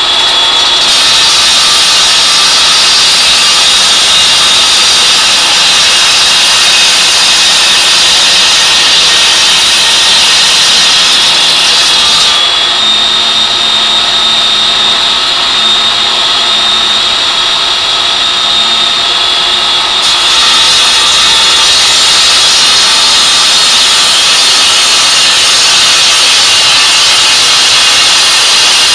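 16-inch brick saw, powered by a 4.5 hp Robin Subaru petrol engine, cutting through concrete block with a water-cooled blade: a loud, steady whine and hiss. The highest part of the hiss drops away from about 12 seconds in to about 20 seconds in, then comes back.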